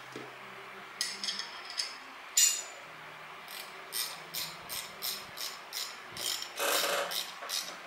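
A 10 mm spanner working the bolts of an air suspension bag's end plate: a few scattered metallic clicks, then an even run of about three ratchet-like clicks a second, and a short scrape of metal near the end.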